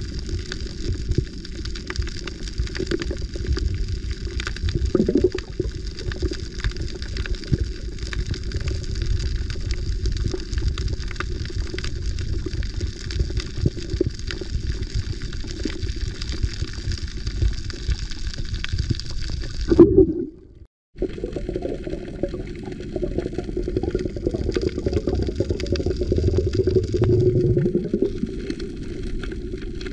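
Underwater sound picked up by the camera: a steady, muffled low rumble with faint crackling, cutting out for a moment about twenty seconds in.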